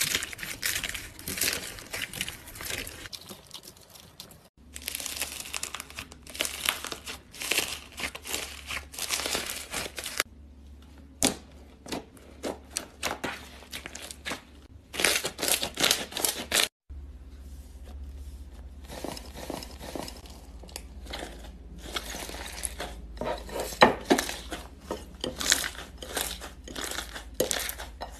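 Hands squeezing, pressing and kneading slime, making dense crackling and popping. The sound changes abruptly about four seconds in and again past halfway.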